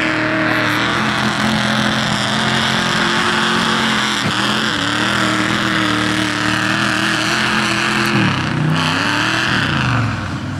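Lifted mud-bog truck's engine held at high revs as its oversized tyres spin through deep mud, with a steady hiss of flung mud and water. About eight seconds in the revs drop, then rise and fall again.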